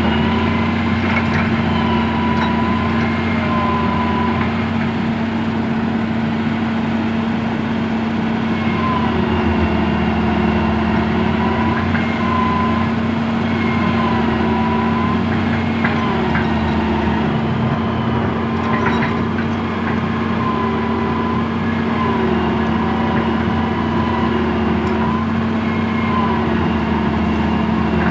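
Tracked excavator's diesel engine running steadily close by, with a whine that wavers up and down every couple of seconds as the boom and bucket work. A few light knocks, one about two-thirds of the way through and one at the very end.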